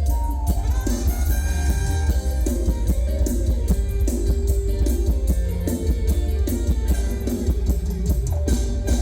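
Instrumental passage of live mor lam band music: a plucked-string guitar melody over a drum kit keeping a steady, fast beat.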